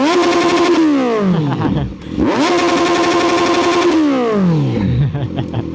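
Kawasaki Z900SE's inline-four engine free-revved hard twice. Each time the pitch shoots up, holds steady and stuttering at the top, then falls away slowly as the throttle closes, the second hold lasting about a second and a half.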